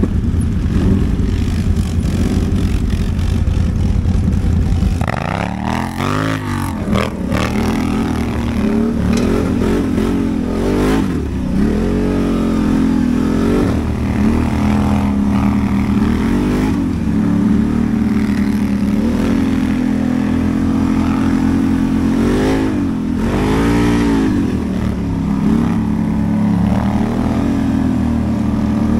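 Quad bike (ATV) engine running steadily at idle, then from about five seconds in revved up and down again and again, its pitch rising and falling with the throttle.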